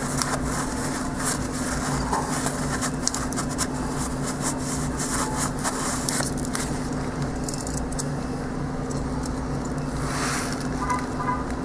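Scraping and rustling handling noises of a rag wiping up oil drips on the motorcycle engine, thinning out after about seven seconds. A steady low hum runs underneath throughout.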